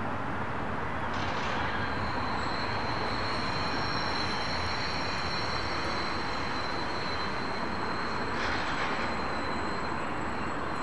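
Train rolling past, its wheels squealing on the rails in a steady high tone over a continuous rolling rush, with two brief louder swells of hiss about a second in and about eight seconds in.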